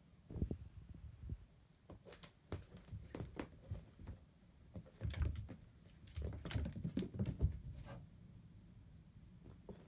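Irregular soft thumps and light taps of a cat scuffling on a hardwood floor and bumping under a chaise lounge, busiest around five to eight seconds in.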